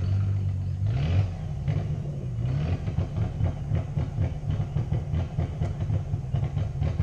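A car engine revving hard under load, its pitch climbing about a second in and again around two and a half seconds, then running on with a rapid pulsing throb.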